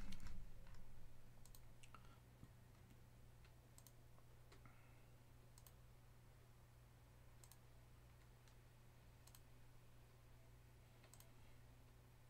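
Computer mouse clicked about eight times, one faint click every second or two, each click re-shuffling an online list randomizer. A low steady hum lies underneath.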